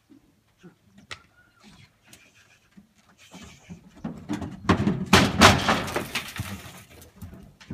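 A horse's hooves scrambling and knocking on a wooden truck bed, then a run of loud clattering and thuds as it jumps down onto loose dirt, loudest about five seconds in. A few faint knocks before it.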